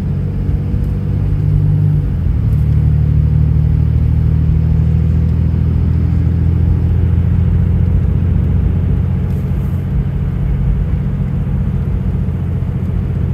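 Cummins inline-six turbodiesel heard from inside the truck's cab while driving, a steady low drone. About two seconds in, the note breaks briefly as the swapped-in Allison automatic upshifts from third to fourth, then the engine pulls on steadily.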